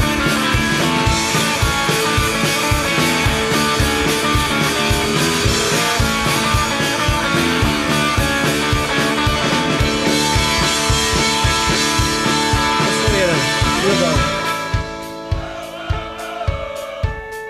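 Indie rock band playing live with electric guitars, bass and a drum kit in an instrumental passage with no singing, over a steady drum beat. About fourteen seconds in the full band thins out and drops back, leaving sparser drum hits and guitar.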